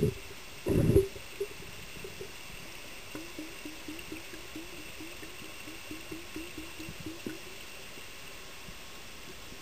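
Water heard through an underwater camera housing: two heavy, muffled low thumps in the first second, then a run of short rising chirps, about three a second, over a steady hiss.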